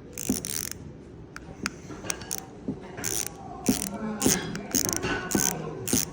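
Irregular bursts of ratcheting clicks from a hand driver working a small motor's mount screws loose, with sharp metal ticks between the bursts.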